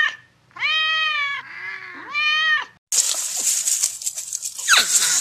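A cat meowing: two clear drawn-out meows with a fainter one between them. About three seconds in, the sound cuts to a steady hiss with a couple of quick falling squeaks near the end.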